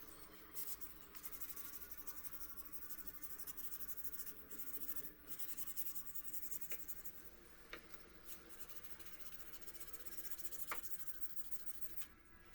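Hand sanding with abrasive paper: quick back-and-forth scratchy rubbing for about six seconds, then a few light clicks and a shorter bout of rubbing near the end.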